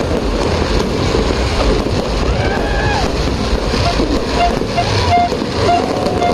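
Steady hubbub of a large outdoor crowd with wind buffeting the microphone, and a few short high toots in the second half.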